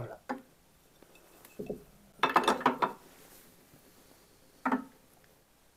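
Seashells clinking and clattering against each other as a pile of them is handled: a single click at the start, a short clatter about a second and a half in, and a last clink near the end.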